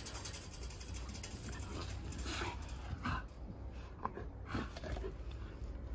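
A dog panting, a run of short breaths.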